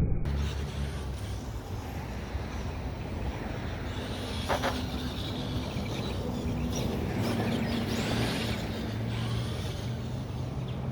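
1/10-scale RC monster truck driving, its motor and drivetrain humming and shifting in pitch with speed over steady tyre and running noise, with a brief sharp knock about four and a half seconds in.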